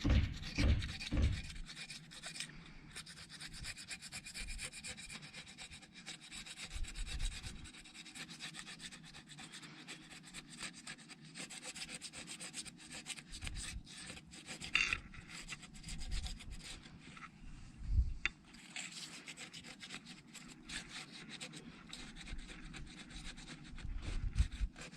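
Continuous rubbing and scraping handling noises, with a few short dull knocks, the loudest about 18 s and 24 s in.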